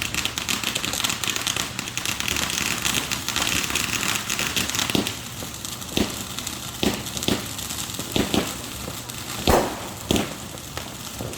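Consumer fireworks going off: a dense, fast crackling for about the first five seconds, then separate bangs roughly a second apart, the loudest about nine and a half seconds in.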